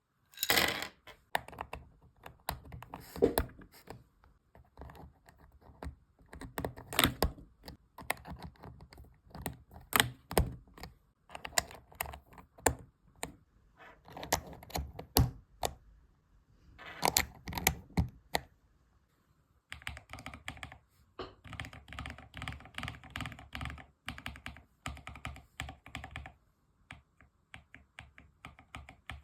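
Mechanical keyboard with Akko silver switches being typed on: irregular bursts of keystrokes with some louder clacks mixed in. About two-thirds of the way through, after a brief pause, comes a stretch of fast, steady typing.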